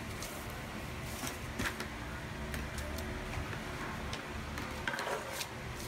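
A plastic pattern-drafting curve ruler being handled on pattern paper: a few faint scattered taps and paper rustles over a steady low background hum.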